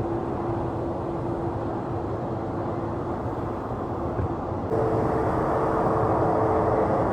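Jet engine noise from a departing Korean Air Airbus A380: an even rush with one steady tone running through it. About two-thirds of the way in it cuts abruptly to a louder Boeing 747-400 freighter's engines, the rush stronger and carrying two steady tones.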